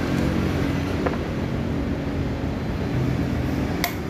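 Steady low engine hum in the background, with light metal clinks from a motorcycle cylinder block being handled: a faint one about a second in and a sharper one near the end.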